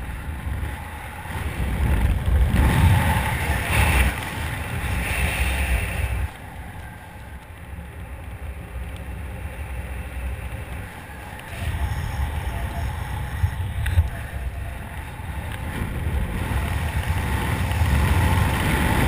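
Wind rushing over a helmet-mounted camera's microphone in parachute canopy flight, a low buffeting rumble that swells about two seconds in, eases off near the middle and builds again toward the end.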